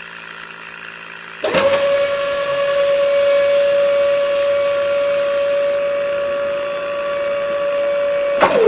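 Small brushed DC motor of a toy borewell drilling rig switched on about one and a half seconds in: a high whine that climbs quickly to a steady pitch, runs for about seven seconds, then drops in pitch as it winds down near the end. Before it starts, a fainter steady hum.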